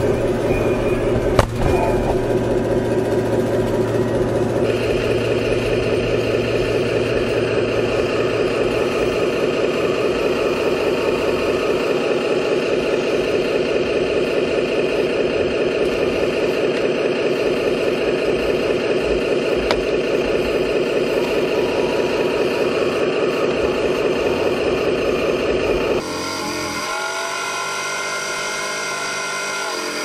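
Electric-driven hydraulic pump of a 1:12 scale remote-control excavator whining steadily while the machine works, its tone shifting a few seconds in. A sharp knock comes about a second and a half in, and the sound changes abruptly near the end.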